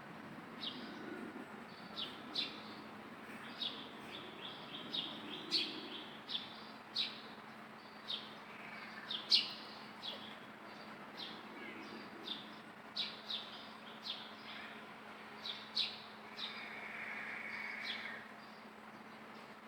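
Short, sharp, high-pitched animal chirps repeating irregularly, roughly one or two a second, with a longer, lower call near the end, over a faint steady hum.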